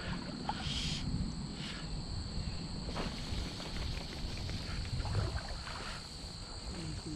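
Crickets trilling steadily in two high, thin tones over a low rumble of wind and moving water.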